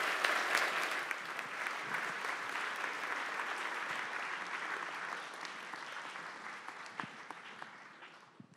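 Audience applauding, loudest at the start and gradually dying away near the end.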